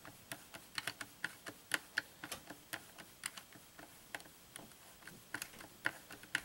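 Ratcheting screwdriver clicking as a screw is backed out of a plastic RC truck chassis: sharp, uneven clicks, about three or four a second.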